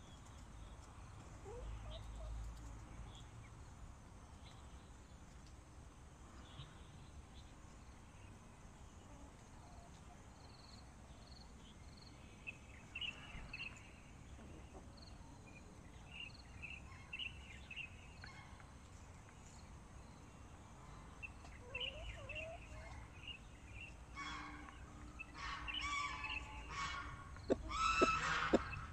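Sanhuang hens clucking softly in short, scattered calls, growing louder and more frequent over the last few seconds, with quick sharp clucks at the very end.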